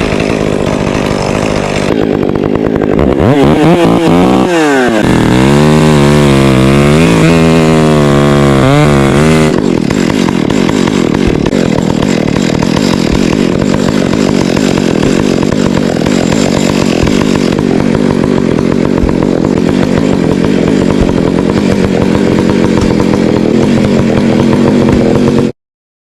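Gasoline chainsaw running and cutting through a large tree. Its engine pitch dips and climbs from about three to ten seconds in, then it runs steadily before cutting off abruptly near the end.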